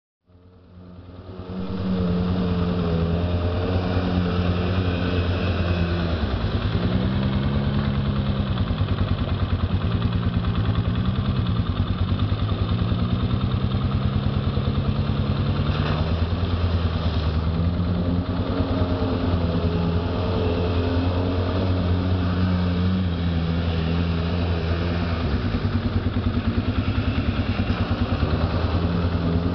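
ATV engine running under load through a deep muddy water puddle, revving up and down so its pitch rises and falls every few seconds. It fades in over the first couple of seconds.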